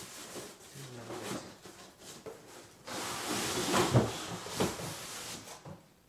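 Cardboard packaging scraping and rubbing as a long cardboard insert is dragged up out of a tall vacuum-cleaner shipping box, loudest about four seconds in.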